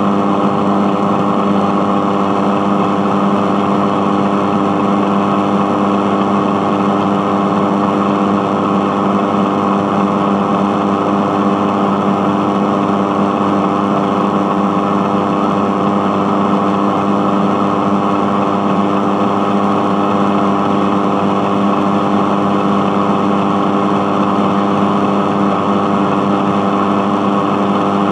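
Radio giving off a steady, unchanging electrical buzz, a low droning tone with hiss above it.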